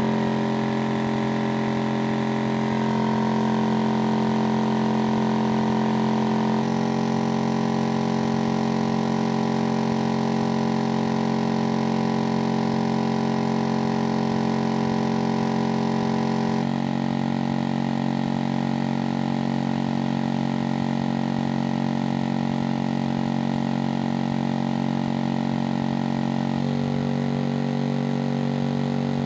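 Twenty Skar Audio MA-8 subwoofers playing a bass test tone together in free air: a loud, steady drone that changes pitch in steps about every ten seconds.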